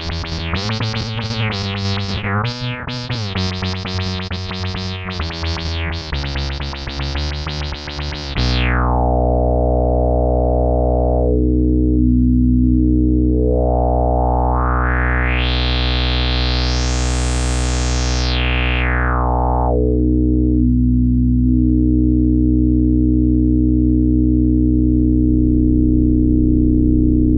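Electric bass played through an MXR MB301 Bass Synth pedal, giving a synth-bass tone. A run of separate notes for about eight seconds gives way to one long held low note; its tone slowly sweeps brighter and then darker again, and the note then sustains.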